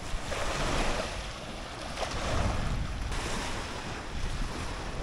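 Wind blowing across the microphone: a low, uneven rumble under a steady rushing hiss that swells and eases slightly.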